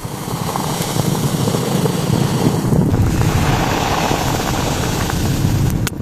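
Strong blizzard wind blowing steadily, buffeting the microphone.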